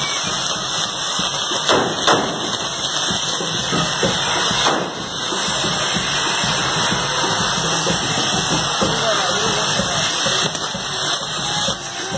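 Fireworks castillo burning: a steady loud hiss of spark fountains driving its spinning wheels, with a few sharp cracks.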